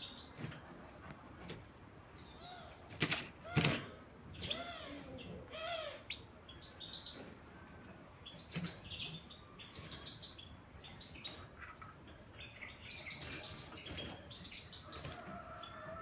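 Caged European goldfinch twittering and chirping, with a run of short arching call notes a few seconds in. Sharp knocks and wing flutters as it hops about the wire cage, the loudest about three seconds in.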